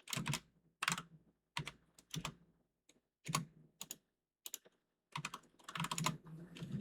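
Computer keyboard keystrokes: a few separate key presses spaced out, then a quicker run of typing starting about five seconds in.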